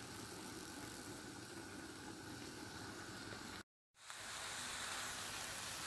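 Faint, steady hiss of a lidded pan of collard greens simmering in vegetable broth, with a brief dropout to silence about two-thirds of the way in.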